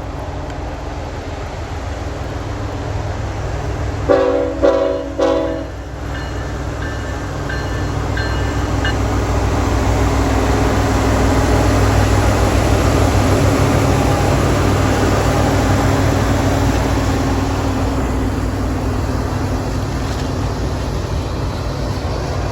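Norfolk Southern diesel freight locomotive sounding its horn in three short blasts about four seconds in, over the low engine rumble. The rumble of the locomotive and its cars then swells as the train rolls past, loudest around the middle, then eases slightly.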